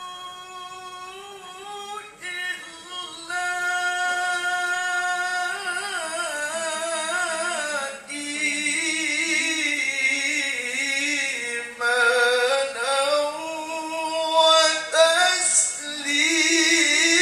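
A qari's solo unaccompanied voice chanting melodically into a microphone: long, ornamented held notes with vibrato in a high register, broken by short breaths, climbing higher near the end.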